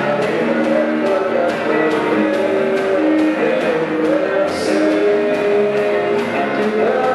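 A rock band playing with guitars and drums, a steady beat about twice a second under a sung or lead melody.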